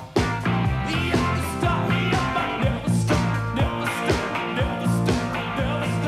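Background music with a bass line and drum hits, dropping out for a split second right at the start before coming back in.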